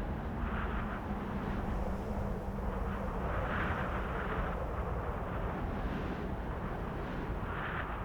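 Cold winter wind blowing steadily with a deep rumble, rising in gusts that swell and fade, the strongest about halfway through.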